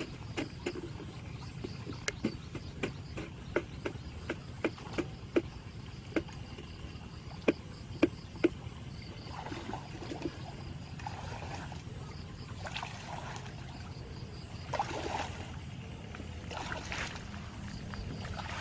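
A run of sharp clicks and knocks, then a handful of short splashes of water against a steady low rumble.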